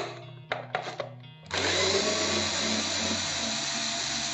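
Cordless drill-driver turning a screw in a plastic speaker cabinet's back panel, running steadily from about one and a half seconds in, after a few clicks and knocks of handling.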